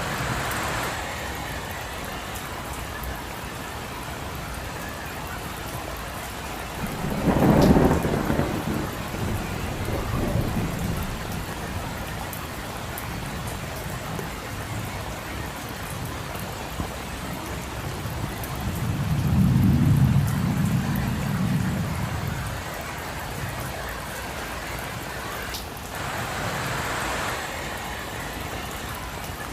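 Steady rain falling on a street, with two low rolls of thunder, one about a quarter of the way in and a longer one about two-thirds in. There are short swells of hiss near the start and near the end.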